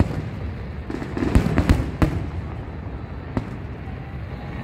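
Aerial fireworks shells bursting overhead: about five sharp bangs, three of them in quick succession between one and two seconds in, over a continuous low rumble of the display.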